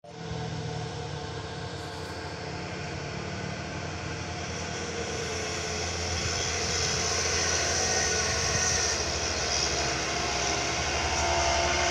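Diesel engines of two heavily loaded trucks pulling hard in low gear as they crawl up a steep, sharp bend, the steady engine sound growing louder as they come closer.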